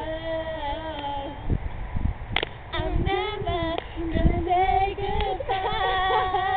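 Girls singing a song together without accompaniment, in long held, slightly wavering notes with short breaks between phrases.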